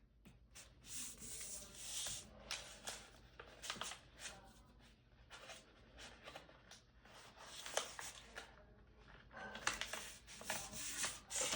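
A sheet of paper rustling and crinkling as it is folded and creased by hand, in short irregular crackles.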